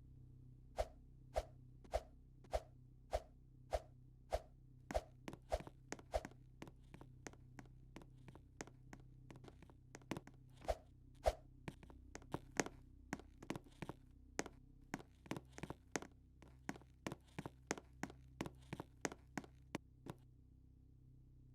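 A run of sharp taps, evenly spaced at first at a little under two a second, then quicker and uneven, stopping about a second before the end, over a faint steady low hum.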